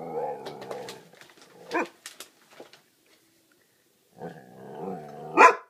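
Irish setter giving a long, pitched grumbling growl-howl, a watchdog's warning at something outside the window, then after a pause a second drawn-out one that ends in a loud sharp bark.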